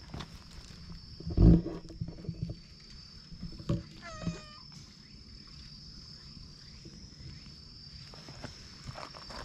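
Stray cat meowing once, briefly, about four seconds in. About a second and a half in comes a louder, low-pitched sound, and there are scattered footsteps on gravel and a faint steady high whine.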